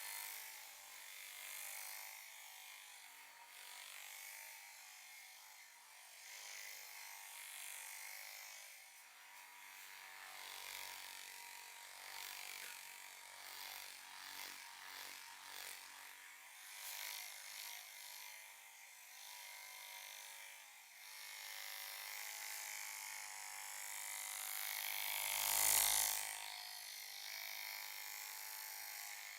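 Head and scalp massage heard close up: steady rubbing and scratching of hands in the hair, with one louder swell near the end.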